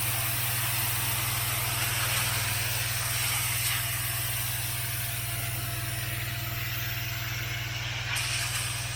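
Pressure washer running steadily: a constant engine hum under the hiss of the high-pressure water spray.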